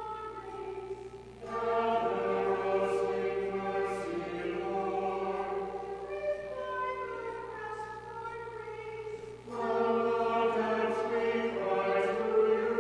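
Congregation singing the entrance hymn in unison, held notes with a short breath before each new line, the singing coming back louder about a second and a half in and again about nine and a half seconds in.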